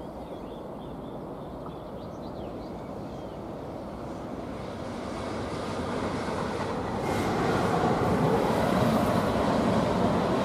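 EuroCity passenger train hauled by a red electric locomotive, approaching and passing. The rumble of its wheels on the rails grows steadily louder from about halfway through.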